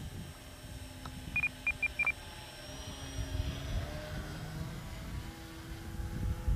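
Wind buffeting the microphone, with the faint whine of a micro RC pattern plane's motor rising and falling in pitch as it flies. Four quick high beeps sound about a second and a half in.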